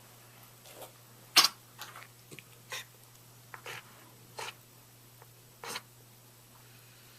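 Two dogs playing together: a string of about seven short, irregular scuffling sounds, the loudest about a second and a half in.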